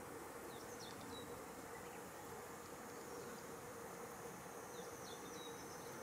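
Quiet outdoor ambience: an even rush of shallow water running in an irrigation canal under a constant insect buzz, with two brief sets of faint high chirps, about a second in and near the end.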